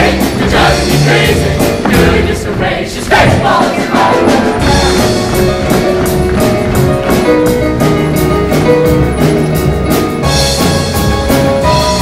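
Show choir and its live combo band performing an up-tempo number, with held notes and a steady drum beat; the choir's singing is clearest in the first few seconds.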